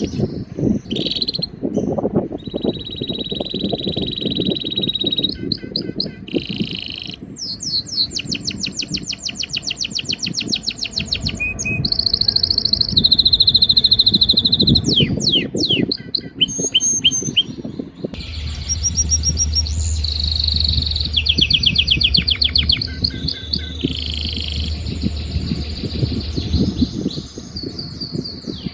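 Male canary singing its breeding-season courtship song. Phrases of fast trilled rolls alternate with long held whistled notes, with brief breaks between phrases.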